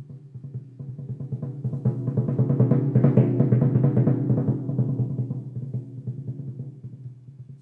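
A set of four timpani played in a fast roll, pitched low and ringing on several notes at once. The roll swells to a peak about three seconds in, then fades away.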